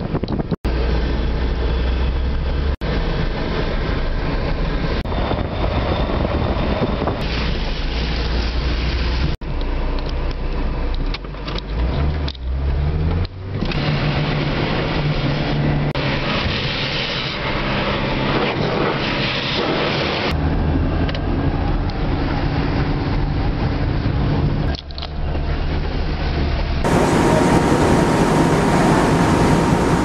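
A car driving, its engine running steadily under road and wind noise, in a string of short clips cut abruptly together; around twelve seconds in the engine's pitch rises briefly. The last few seconds are a different recording, brighter, with a faint steady tone.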